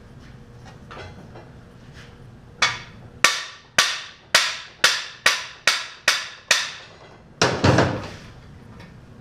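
Nine ringing hammer blows on metal, about two a second, driving the cam bearings out of a 350 small-block Chevy engine block. They are followed by a longer metallic clatter near the end.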